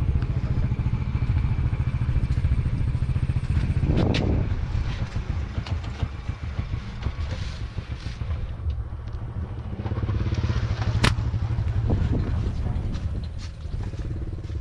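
A small engine running steadily, with noise on the microphone over it and two sharp clicks, about four and about eleven seconds in.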